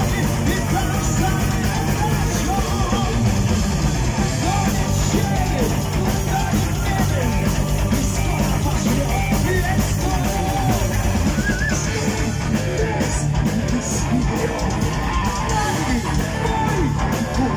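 Live heavy metal band playing: a male singer over distorted electric guitars and a drum kit.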